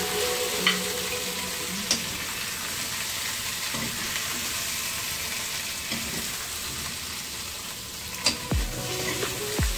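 Potato and carrot chunks sizzling in oil in a frying pan as they are stirred and turned with a utensil, with a few sharp clicks of the utensil against the pan. Near the end come a few low tones that fall in pitch.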